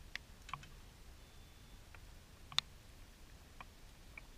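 Faint, scattered sharp clicks and ticks, irregularly spaced, with the loudest single click about two and a half seconds in.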